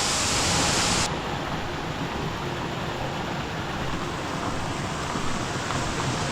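Steady rush of a large waterfall's falling water. About a second in the sound abruptly turns duller as its hiss drops away.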